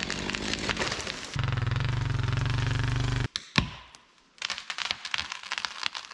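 Gas chainsaw felling a tree: running at lower revs, then at full throttle in the cut for about two seconds before cutting off suddenly. A sharp snap follows, then a series of cracks and snaps as the cut tree starts to tip.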